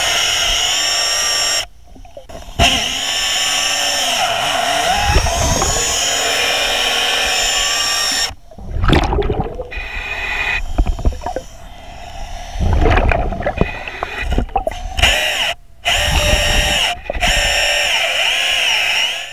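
Hydraulic chainsaw running underwater as it cuts through a wooden dock post, a steady high whine. It drops out briefly about two seconds in, again around eight seconds in and near fifteen seconds in.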